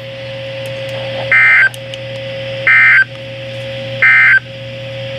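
NOAA Weather Radio's EAS end-of-message signal: three short bursts of digital data tones, evenly spaced about a second and a half apart, marking the end of a severe thunderstorm warning. A faint steady tone sounds between the bursts.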